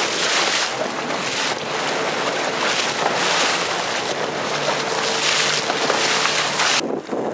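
Strong wind buffeting the microphone in surging gusts over choppy sea, with a faint steady hum underneath. The wind noise drops sharply near the end.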